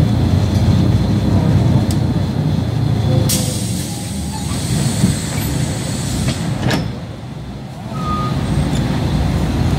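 City bus engine rumbling from inside the cabin as the bus slows. About a third of the way in, air brakes hiss for a few seconds and end in a sharp click, and the rumble then quietens as the bus comes to a halt.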